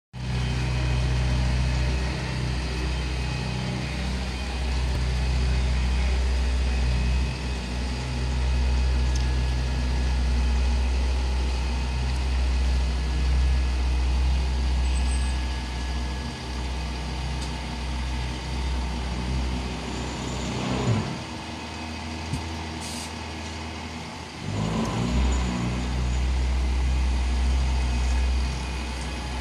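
Diesel engine of a Volvo FH16 750 truck, a 16-litre straight-six, running with a steady low drone. About two-thirds of the way through the engine note falls away and goes quieter, then rises back a few seconds later.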